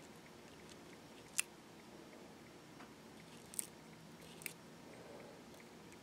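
Small fly-tying scissors snipping hackle fibres, trimming the hackle flat along the bottom of the fly. Three short, sharp snips, one about a second and a half in and two more later, with a few fainter ticks between.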